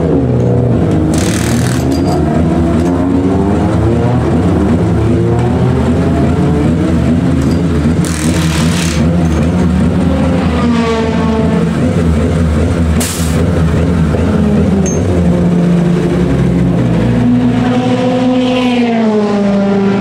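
Race car engines running on the circuit, their pitch rising and falling as they pass. Three short rattling bursts of a wheel-nut impact wrench come about one, eight and thirteen seconds in.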